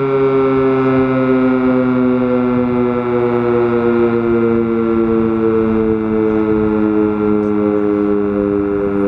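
Sentry 10V outdoor warning siren sounding a loud, sustained chord of tones, its pitch slowly falling.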